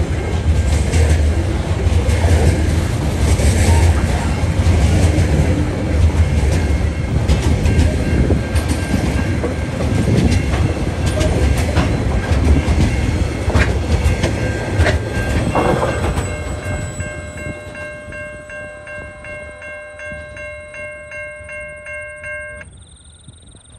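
Coal hopper wagons of a freight train rolling past with a heavy low rumble and sharp wheel clicks. Past the middle the rumble fades as the train moves away, and a level crossing's warning bell becomes clear, ringing about twice a second, then stops shortly before the end.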